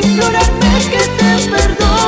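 Live band playing Latin dance music with a steady beat. A kick drum hits about twice a second under bright, evenly spaced shaker or cymbal strokes, with a wavering lead melody on top.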